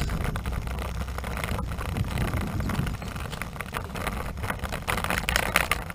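Wind rushing over the microphone of a camera on a moving road bike, with a steady low rumble of tyres on asphalt and scattered small clicks and rattles.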